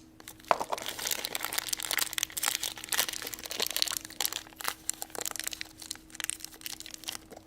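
Crinkly wrapper of a small toy packet being handled, a continuous run of quick crackles.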